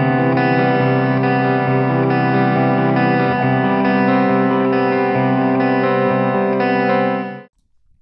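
Electric guitar playing sustained chords that change every second or so, stopping abruptly near the end.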